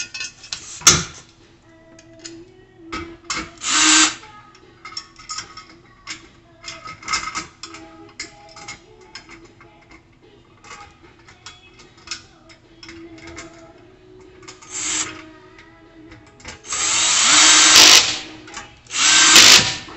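Power drill driving bolts into the metal legs of a gas grill cart in four short runs, the longest and loudest about a second and a half near the end, with light clinks of metal parts between them.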